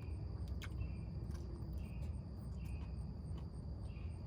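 Insects chirping: short chirps repeating every half second to a second over a steady high insect whine, with a low rumble underneath and a few soft clicks.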